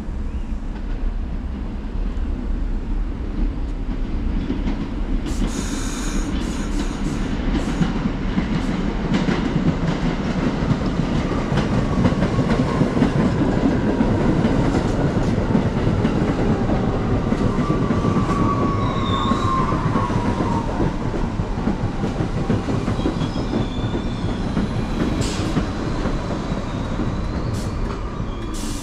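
New York City Subway R62A train running along the platform, its wheels clacking over the rail joints; the rumble swells to its loudest around the middle and then eases. A short squeal that falls in pitch comes about two-thirds of the way through.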